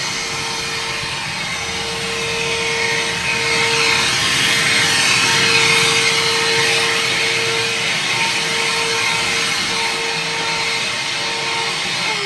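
Leaf blower running steadily: a rush of air with a steady whine, a little louder for a few seconds in the middle.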